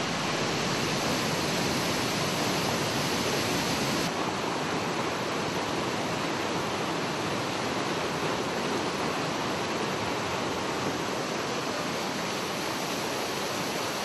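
Mountain stream rushing over rocks and a small cascade, a steady, unbroken rush of water.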